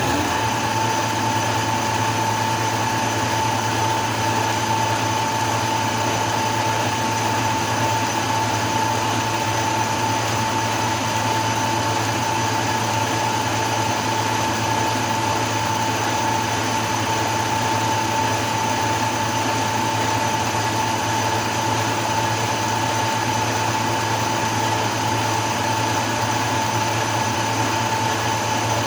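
Metal lathe running steadily, a constant motor hum with a high, even whine over it.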